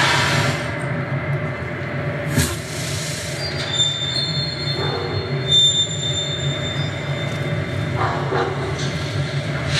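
Industrial-style soundscape over the show's speakers: a steady low drone, a sharp metallic crash about two and a half seconds in, then high, steady squealing tones like train wheels on rails for a few seconds.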